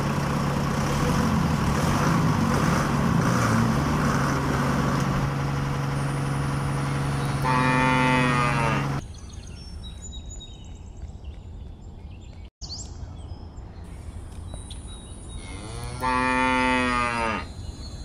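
Cow mooing twice, two long calls about eight seconds apart, the first closing a steady engine hum that stops at about nine seconds. Faint bird chirps between the calls.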